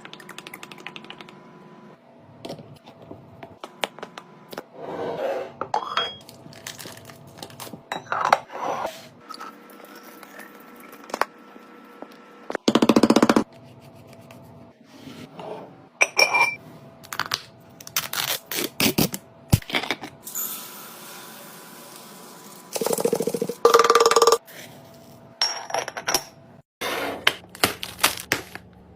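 Food containers and dishes being handled: a run of clinks, clicks and scrapes as items are set down and lids fitted, with a few louder stretches of rustling or shaking.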